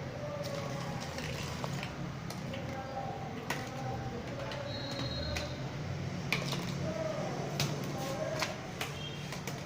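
Scattered light clicks and taps of a disposable cup being batted about by a cat, over a steady low hum.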